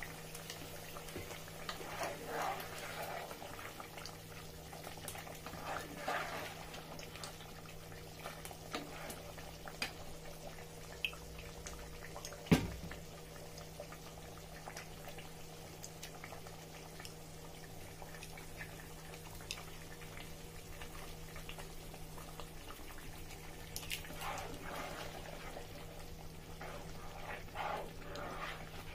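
Thick blended pepper and tomato sauce bubbling and popping at the boil in a pot, over a steady low hum. It is stirred with a spoon now and then, and a single sharp knock comes near the middle.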